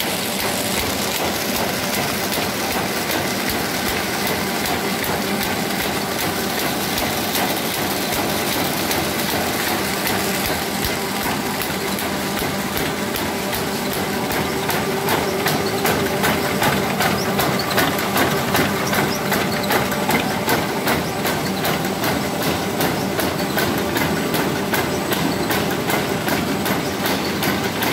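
1976 W+H Matador S flat/satchel paper bag making machine running at production speed: a steady mechanical clatter with fast, regular clicking, pulsing louder and more rhythmically from about halfway.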